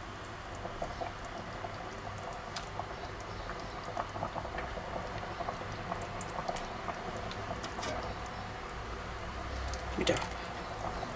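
Sauce simmering and bubbling in a pot, with small pops and wet liquid sounds as beef roulades are lowered into it with tongs. A brief knock comes about ten seconds in.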